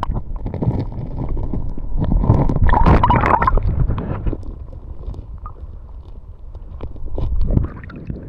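Muffled rushing and gurgling of river water heard through a camera held underwater, with knocks and splashes, loudest about two to three and a half seconds in. The sound drops and clears near the end as the camera comes up out of the water.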